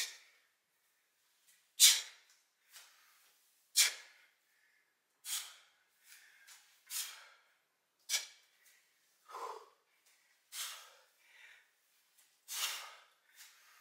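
A man breathing hard from exertion during a kettlebell set: short, sharp breaths, about one every one to two seconds, with quiet between.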